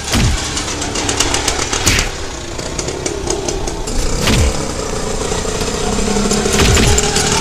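Auto-rickshaw engine running as the three-wheeler drives along, growing gradually louder as it approaches, with a rapid ticking rattle over the engine note.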